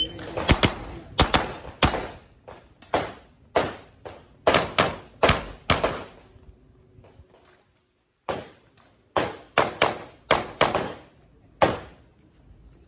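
Pistol-caliber carbine fired in quick strings: about a dozen shots over the first six seconds, a pause of about two seconds, then another fast string of about eight shots.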